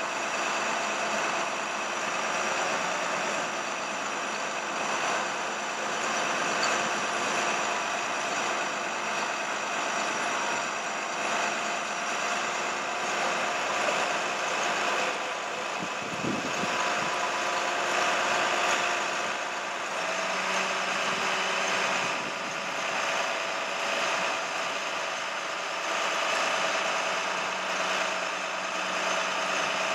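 A truck engine running steadily. Its note changes about two-thirds of the way through.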